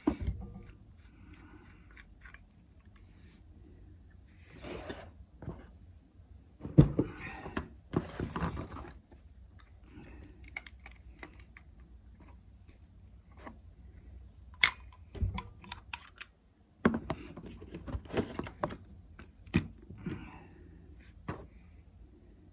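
Irregular clicks, knocks and short scrapes of hand tools and metal pipe fittings being handled during boiler pipework.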